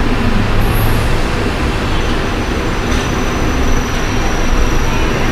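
Steady rumbling background noise, like traffic or a busy room's din, with a faint high whine from about two seconds in.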